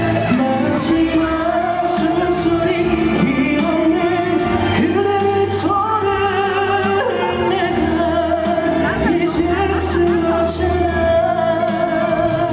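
A singer performing live with band backing music in a large hall: long held, wavering vocal notes over a steady accompaniment, with a few crisp high hits.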